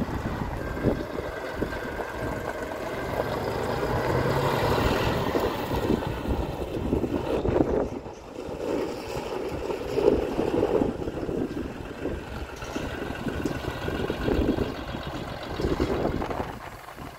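2015 John Deere 5065E tractor's three-cylinder John Deere 3029H diesel running as the tractor drives across the yard, with wind buffeting the microphone.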